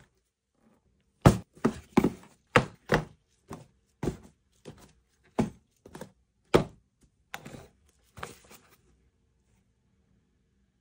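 Cardboard product boxes set down one after another on a wooden desk: a run of about fifteen sharp knocks and thunks, irregularly spaced over some seven seconds, stopping about two seconds before the end.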